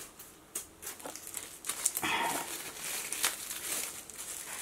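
Small clear plastic bags of LEGO parts crinkling as they are handled, in short crackly bursts with a denser rustle about two seconds in.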